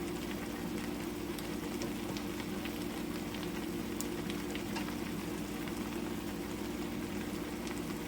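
Pot of chicken and rice cooking on the stove, sizzling steadily with scattered faint crackles, over a steady low hum.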